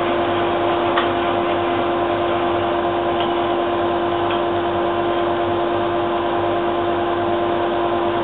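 Bandsaw and dust extractor running with no wood in the cut: a steady machine hum with a constant pitched drone.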